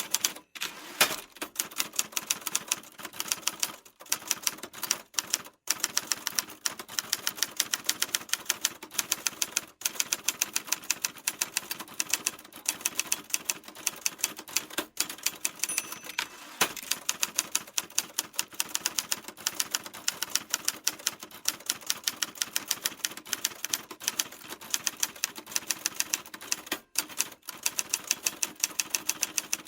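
Typewriter keys being struck in a fast, steady stream of clacks, several a second, with a few brief pauses.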